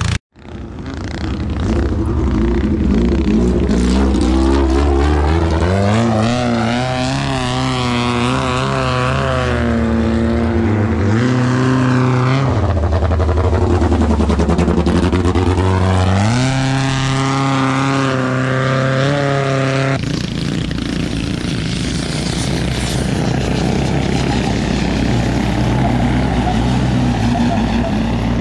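Long-tail boat engine running hard, its pitch climbing as it revs up, dropping back, then climbing again and holding. Later it gives way to a steadier, rougher engine drone mixed with rushing noise.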